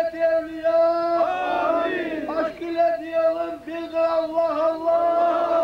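A crowd of men chanting together in unison, a Muslim devotional chant. They hold long steady notes while other voices slide up and down over them.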